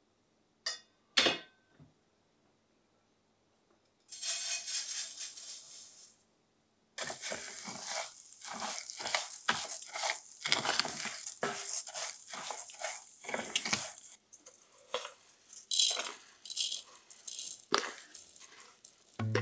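Wooden spatula stirring and scraping raw rice grains around a frying pan in sesame oil, with the grains rattling against the metal. It follows two knocks of the pan set onto the gas stove about a second in and a brief hiss a few seconds later. Near the end the rice is scraped out of the pan into a clay pot.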